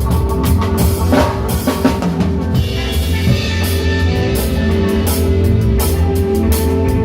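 Reggae band playing, with the drum kit loud and close: kick drum, snare and rimshots over bass and sustained keyboard or guitar chords.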